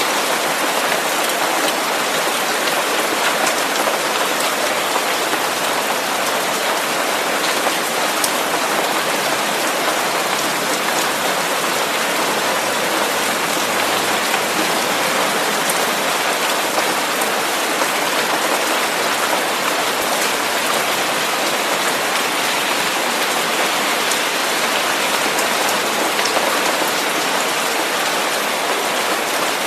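Steady, even rain-like hiss with a few faint scattered drop-like ticks, unchanging in level.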